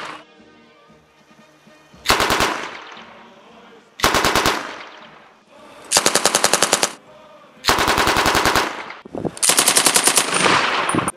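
MG-34 7.92 mm general-purpose machine gun firing five short bursts of rapid automatic fire, about two seconds apart. Each burst lasts half a second to a second, and each shot echoes after it.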